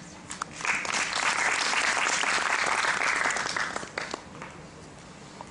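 Audience applauding: the clapping builds within the first second, holds for about three seconds and dies away, with one last stray clap near the end.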